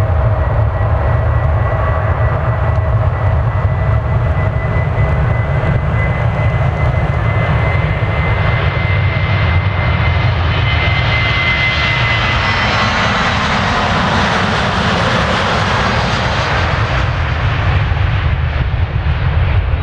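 Boeing 737-800's CFM56-7B turbofan engines at takeoff thrust during the takeoff roll: a steady whine over a deep roar, the hiss growing brighter and louder as the airliner passes close about halfway through, then easing as it rotates for liftoff near the end.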